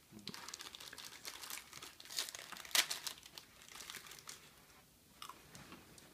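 Plastic snack wrapper crinkling and tearing as it is handled and pulled open, in a run of dense crackles with the loudest rustle just before three seconds in, growing sparser near the end.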